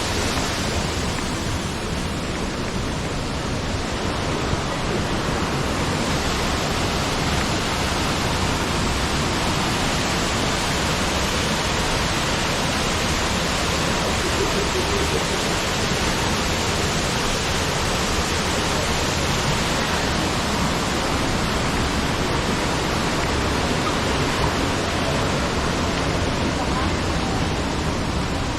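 Jungle waterfall rushing: a steady, unbroken wash of falling water.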